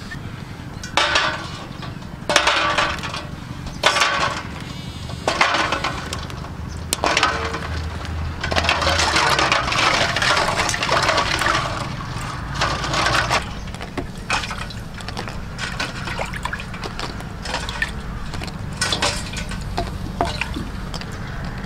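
Water splashing and swishing in a metal bowl as hands rub and wash duck eggs in it. It comes in bursts of a second or two, with a longer run of splashing near the middle.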